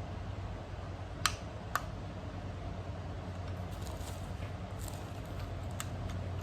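Two sharp clicks about half a second apart, then faint light clicks and rustling, over a steady low hum.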